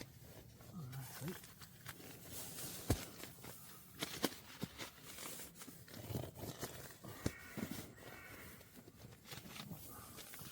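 Quiet rustling and handling of fabric and sleeping gear, with scattered small clicks and knocks.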